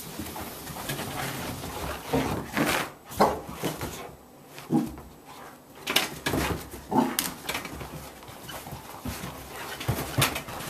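A boxer dog makes a series of short whining noises, roughly one every second or two. Near the end there are a few sharp knocks.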